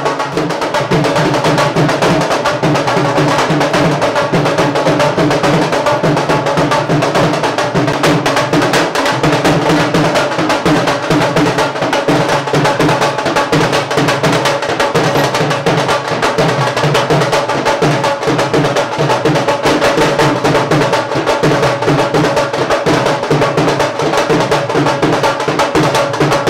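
Music driven by fast, steady dhol drumming.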